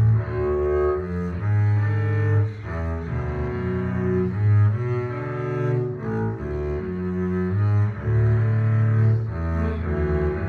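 Solo double bass played with the bow: a continuous line of held low notes with a warm, rich tone, moving from pitch to pitch every second or so, with occasional louder swells.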